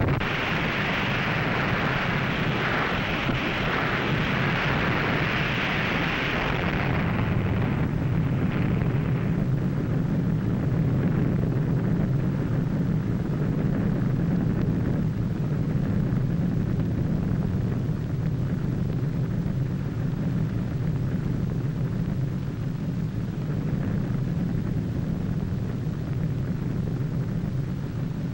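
Roar of an underwater atomic bomb blast: a loud hissing roar for the first several seconds, settling into a steady deep rumble.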